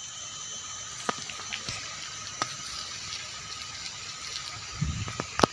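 Steady hissing background noise with a faint high whine, broken by a few scattered clicks.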